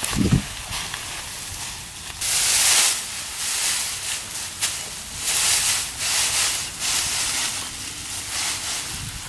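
Dry harvested rice stalks rustling as a sheaf is gathered and bound by hand, in uneven bursts, the loudest about two seconds in.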